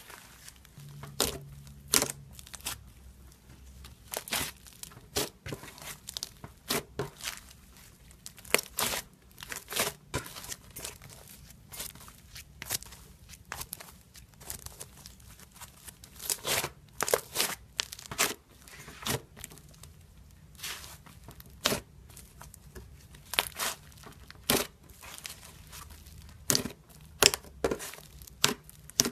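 Slime being stretched, torn apart and squished by hand, giving irregular sharp crackling pops and snaps, several a second at times.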